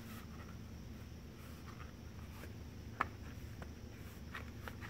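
Quiet steady background hum with a few soft clicks, the clearest about three seconds in.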